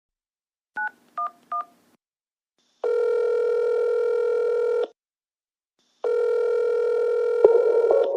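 Telephone keypad tones dialing three digits, 9-1-1, in quick succession. Then the ringing tone of the call comes through the line twice, each ring about two seconds long. This is a phone-call sound effect opening a song.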